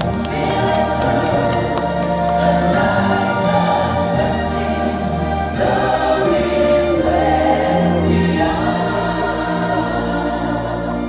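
A choir singing over a loud show music track with a steady heavy bass. About eight and a half seconds in the bass drops away while the singing goes on.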